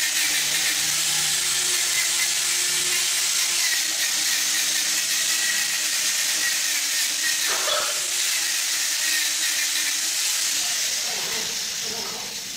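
Handheld power sander with a round sanding pad, its motor switched on abruptly and running steadily as it sands a turned hardwood newel post, then winding down near the end.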